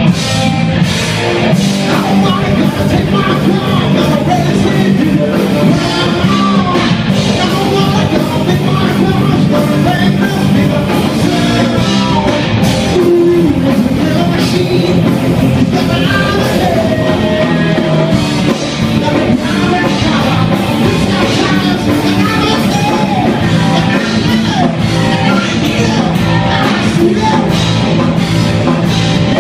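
Live rock band playing loud: electric guitars and drum kit with a singer's voice on top.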